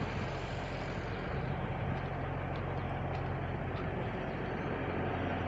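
Diesel engines of parked semi trucks idling, a steady low hum.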